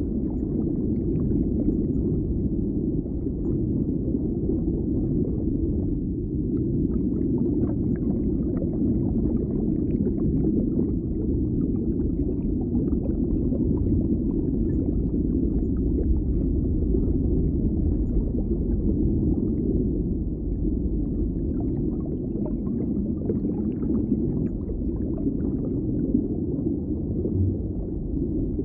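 Steady, muffled low rumble of background noise with faint scattered clicks, and no distinct event standing out.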